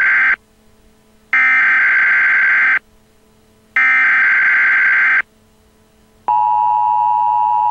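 Emergency Alert System tones. The digital header data bursts sound in blocks about a second and a half long with a second's gap: one ends just as the sound begins, then two more follow. About six seconds in, the steady two-tone attention signal starts and holds.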